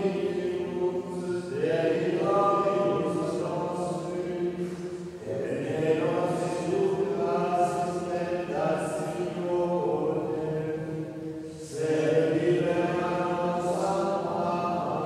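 Men's voices singing Gregorian chant in Latin, in long sustained phrases with short breaks for breath three times.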